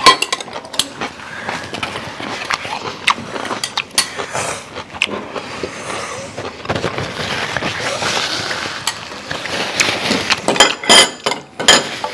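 Close-miked clatter of eating at a table: metal spoons and forks clinking and scraping on ceramic plates, with a quick run of sharp clicks near the end.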